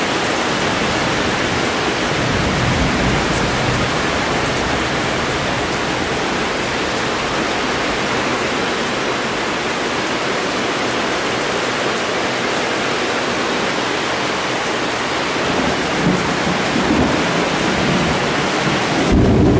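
Heavy rain pouring steadily onto a paved driveway and lawn, with low rumbles of thunder about three seconds in, again around sixteen seconds, and a louder rumble at the very end.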